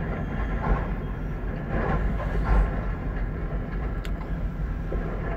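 Steady low rumble of a derailing freight train, heard from inside a moving car over its road noise, with a few louder swells and a sharp click about four seconds in.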